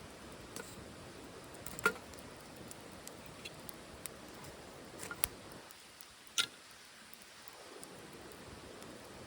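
Wood fire burning in a titanium wood stove: a low steady hiss with scattered crackles and a few sharper pops, the loudest about two seconds in and again near the middle.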